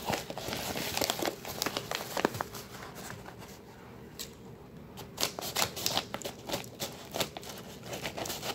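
Yellow paper mailer envelope crinkling and rustling as it is handled, in quick irregular crackles. The crackling comes in two busy spells with a quieter stretch around the middle.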